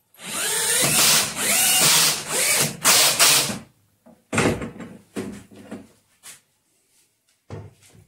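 Cordless drill-driver driving screws into wood, its motor running in four short back-to-back bursts, then one brief burst a little after four seconds in. Light knocks of the wooden piece being handled follow.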